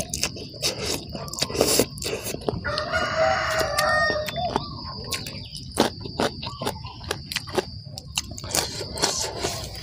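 A rooster crows once, starting about two and a half seconds in and lasting about a second and a half. Around it, close-up wet chewing and mouth smacking as spicy salad and raw vegetables are eaten by hand.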